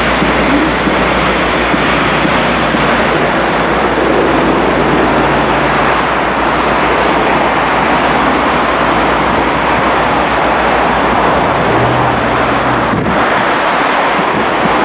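Class 57 diesel locomotive's EMD two-stroke V12 engine running as it moves slowly round a curve with a Class 455 electric unit in tow. Steady wind rumble on the microphone lies over it throughout.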